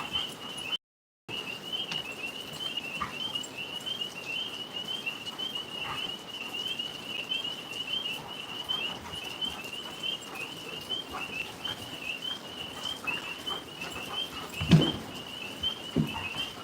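Tree frogs calling in a steady chorus, a continuous high pulsing trill. The sound cuts out completely for a moment about a second in, and a low thud comes near the end.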